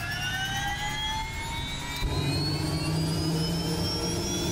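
Helicopter turbine engine spooling up, a whine rising steadily in pitch. About two seconds in, a deeper steady hum joins it.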